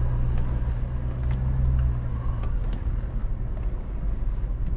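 4x4 engine running at crawling speed on a gravel canyon track, a steady low drone whose note changes about halfway through, with scattered clicks and knocks.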